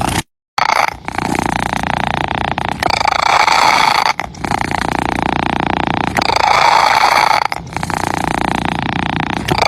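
Domestic cat purring close to the microphone: a continuous rattling purr that switches back and forth between two slightly different tones every one and a half to two seconds, with the breath. It cuts out completely for a moment just after the start.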